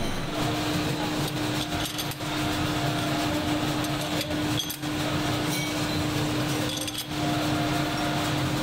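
Factory machinery running with a steady hum and one constant tone, dipping briefly a few times.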